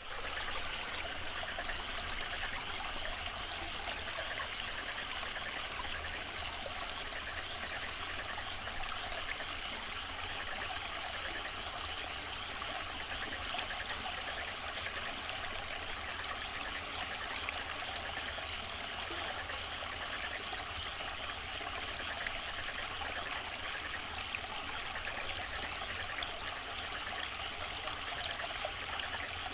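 Steady trickling water in a fish aquarium, over a low hum, with a faint high chirp repeating about once a second.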